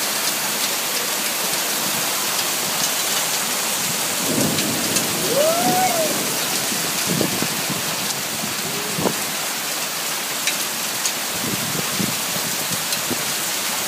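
Heavy rain pouring down, a steady dense hiss with occasional sharp ticks of drops striking hard surfaces.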